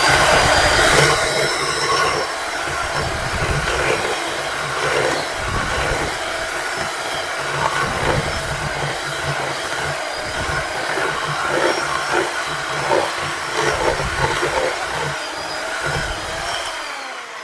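Electric hand mixer running steadily, its beaters churning a thick batter with shredded zucchini in a stainless steel bowl. Near the end the motor winds down and stops.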